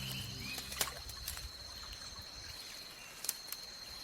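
Faint nature ambience: a steady high-pitched whine with a few short clicks or chirps. A low rumble fades out in the first second.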